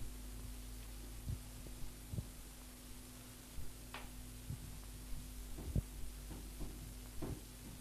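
Steady low electrical hum with irregular soft low thumps and a sharper click about four seconds in.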